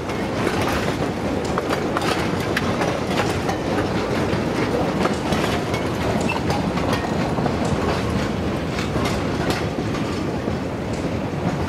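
Open passenger carriages of a 2 ft gauge light railway rolling past on the track, their wheels clicking and clattering steadily over the rails.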